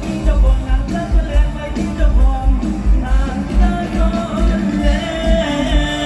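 Live mor lam band music with a singer's voice over a steady bass drum beat, about two beats a second.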